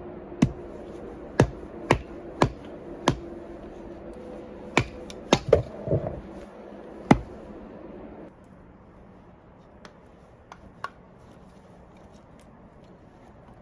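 Sharp, irregular cracks and knocks, about a dozen in the first seven seconds, over a steady low hum. At about eight seconds the hum stops, and only a few faint ticks follow.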